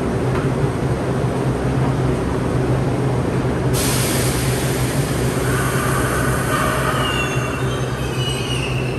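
MBTA Orange Line subway train at the platform with a steady low hum, then a sudden hiss of air about four seconds in. From about five and a half seconds, rising whining tones as the train starts to pull out.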